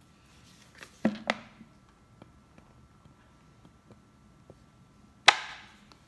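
Thin plastic water bottle crackling as it is squeezed: two sharp crackles about a second in. Then one louder crackle near the end as the bottle springs back and sucks up an egg yolk.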